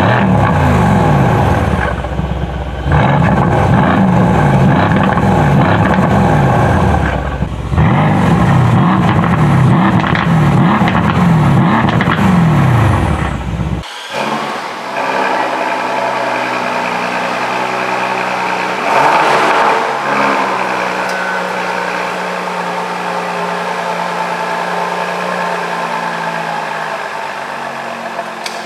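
Mercedes-AMG C63 S Coupe's twin-turbo V8 revved again and again at standstill, heard at the quad tailpipes, with a few brief lifts of the throttle between sweeps. About halfway through this gives way to a Bentley Bentayga's engine idling steadily, with one short rev in the middle before settling back.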